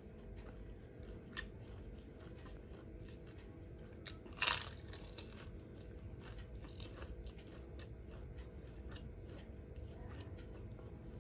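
Close-up eating sounds: steady chewing with small crunches, and one loud crunchy bite about four and a half seconds in.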